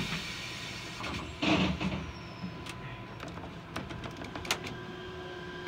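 Chiba Urban Monorail suspended car standing at a station: a short hiss-like burst about a second and a half in as the doors close, then a few light clicks, and a faint steady tone rising near the end as the car gets ready to move off.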